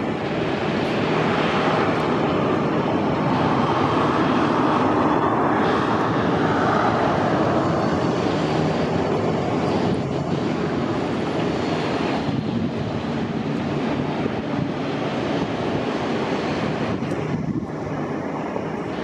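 Airliner jet engines running, a steady loud rush that swells over the first several seconds and eases somewhat in the second half.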